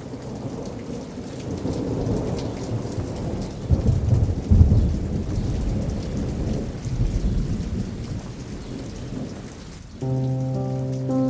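Steady rain with rolling thunder, the heaviest low rumble about four seconds in. About ten seconds in, soft music with long held notes comes in over the rain.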